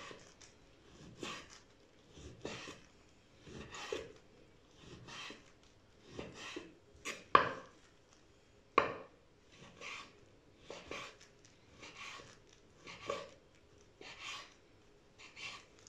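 Chef's knife slicing raw beef into thin strips on a bamboo cutting board, each cut ending in a short knock of the blade on the board, about one a second. Two cuts near the middle land louder than the rest.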